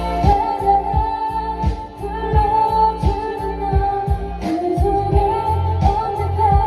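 Female voice singing a pop ballad over a backing track with bass and a steady drum beat.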